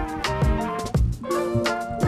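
Background music with a steady beat: jazzy instrumental with horn-like melody notes over drums.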